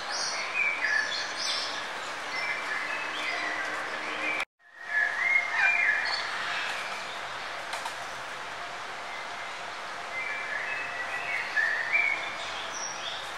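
Birdsong: several birds chirping and trilling over a steady background hiss. Everything cuts out suddenly for a moment about four and a half seconds in, then resumes.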